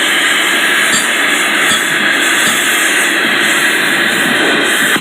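Gas torch flame hissing steadily while heating a metal part, shut off abruptly at the end.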